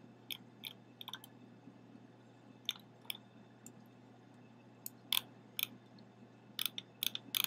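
Computer keyboard keys clicking as code is typed: short, sharp key strokes, a few at a time with pauses between, and a quick run of strokes near the end. A faint steady low hum underneath.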